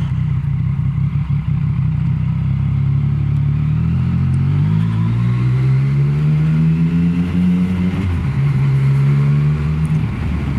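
Yamaha Tracer motorcycle engine running under way: the engine note climbs for a few seconds from a little under halfway in, drops sharply at a gear change about three-quarters of the way through, then holds steady.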